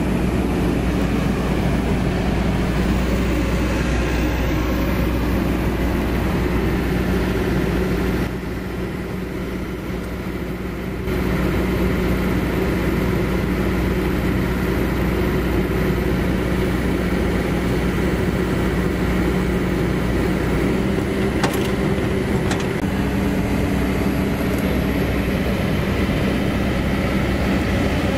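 Kobelco SK200 excavator's diesel engine running steadily under hydraulic load while it lifts and swings a small vibratory roller on chains, a constant low drone with a steady hum. The level dips briefly about eight seconds in, and two sharp clicks come about two-thirds of the way through.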